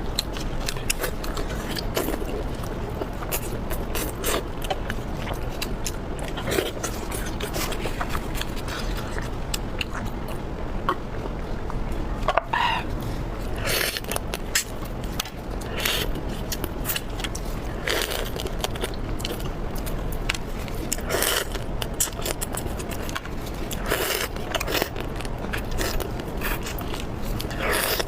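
Close-miked eating: chewing and biting, with many short sharp crunches and clicks scattered throughout over a steady low background noise.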